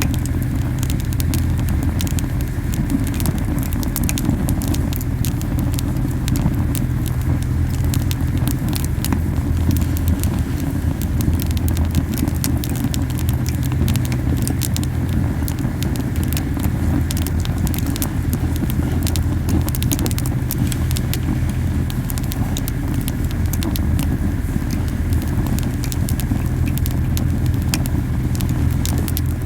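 Camellia-wood campfire burning very hot: a steady low puffing rumble of the flames, strong because the fire is burning fiercely, with dense crackling and popping of the burning wood.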